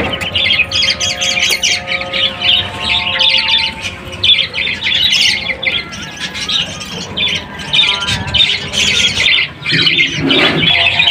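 Ducklings peeping continuously in quick, high chirps.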